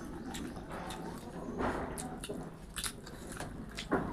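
Close-up sounds of eating: chewing and biting, with scattered crisp crunches and small clicks.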